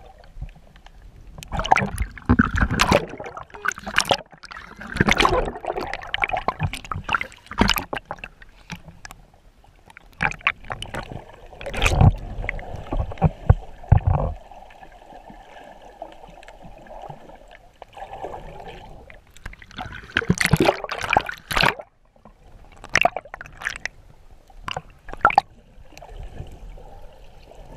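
Water sloshing and gurgling around a camera held underwater, in irregular bursts with sharp knocks, and a quieter stretch about halfway through.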